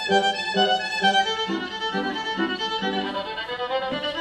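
Violin and upright piano playing together: the violin carries a sustained melody while the piano repeats chords beneath it.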